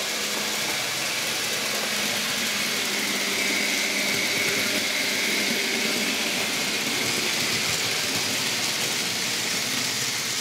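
N gauge model trains running on the layout: a steady rattle of small wheels on track, with a faint motor whine that swells in the middle and fades again as a locomotive passes close.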